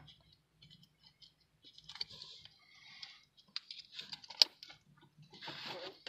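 Quiet clicks, scrapes and rustling of hands working a Mazda 3 smart key fob and its coin-cell battery, with one sharp click about four and a half seconds in.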